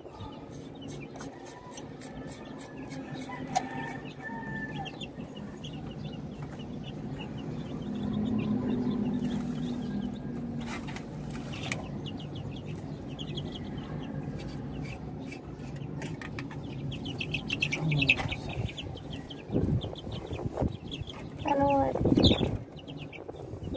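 Chicks peeping in quick, high chirps over the low clucking of chickens in the cages, with a few louder calls near the end.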